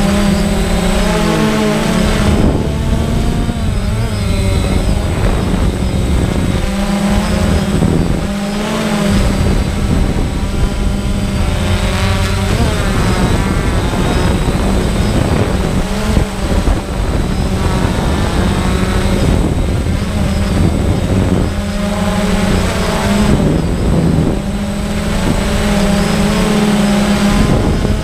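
Multirotor drone's electric motors and propellers whining loud and close, heard from the drone itself, the pitch wavering up and down with throttle as it flies fast and low.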